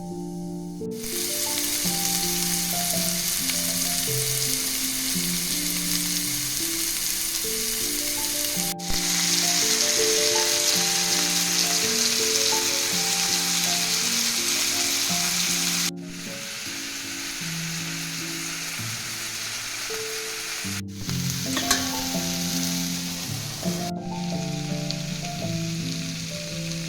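Food frying in a hot pan, a steady sizzle that cuts off and restarts at a few edits, with background music underneath.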